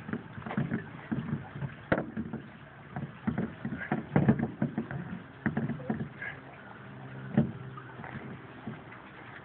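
Irregular metallic clicks and knocks of lug nuts being lined up and threaded onto the wheel studs of a spare tire by hand, over a steady low hum.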